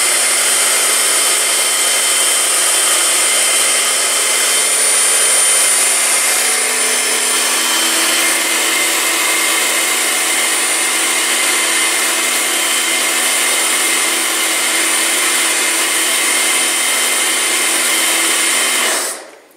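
Kärcher K2 electric pressure washer running steadily, its motor and pump whining over the hiss of the spray hitting a tiled floor. It is set to its lowest 'soft' pressure for spraying detergent. The sound cuts off suddenly near the end.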